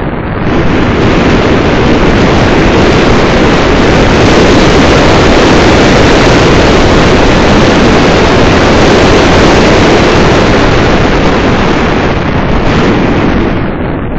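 Loud, steady wind rush buffeting the microphone of a camera on a moving car. It rises about half a second in and drops back near the end.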